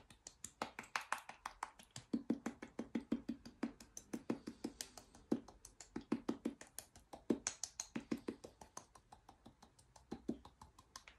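Fingertips patting quickly and lightly on puckered lips in a facial massage: a fast, even run of soft taps, several a second, thinning out near the end.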